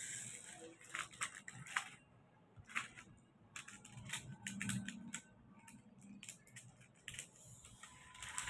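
Metallic foil paper crinkling and rustling in scattered short crackles as foil pieces are handled and threaded onto sewing thread.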